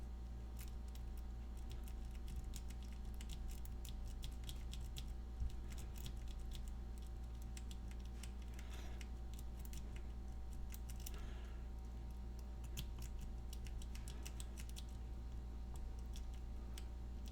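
Rapid, irregular light metallic clicking of a lock pick raking over the pins inside a Master Lock 220 padlock while tension is held on the plug, working it toward a false set.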